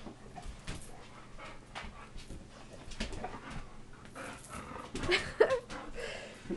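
Pit bulls play-fighting with a person: scuffling and short dog vocal sounds, the loudest cluster about five seconds in.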